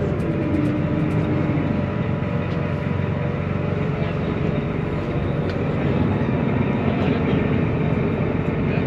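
Steady low engine drone of a small passenger ferry under way, mixed with wash and wind noise.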